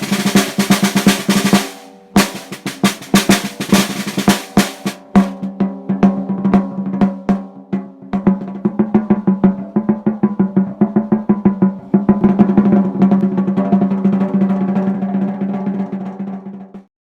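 Snare drum with an Evans Calftone head on a 5x14 aluminum shell, played with sticks: loud, crisp hits with rattling snare wires for the first five seconds, then softer, quicker strokes that build into a roll. The drum has a clear pitched ring under the strokes, and the playing stops suddenly just before the end.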